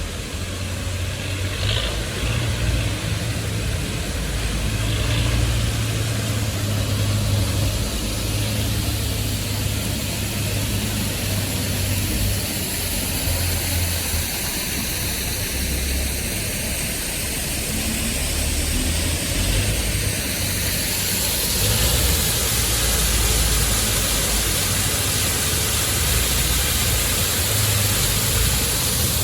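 City street traffic: car engines running with a steady low rumble and road noise, the hiss growing louder about two-thirds of the way through as traffic passes closer.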